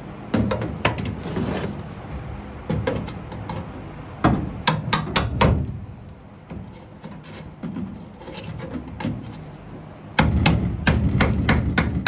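Steel pry bar knocking and scraping against the rusted sheet metal of a Ford F-250 Super Duty bed as it is worked into the seam to split the crossmember from the floor at its drilled-out spot welds. It comes as bursts of rapid sharp taps, with the densest run near the end.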